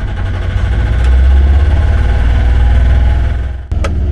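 A sailboat's auxiliary engine running at low speed as the boat motors along, a steady low rumble that grows louder about a second in. It drops out briefly near the end.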